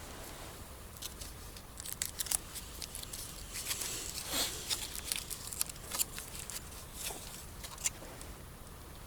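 Irregular rustling and crinkling with many sharp little crackles, thickest about halfway through and easing off near the end: something being handled or crumpled close to the microphone.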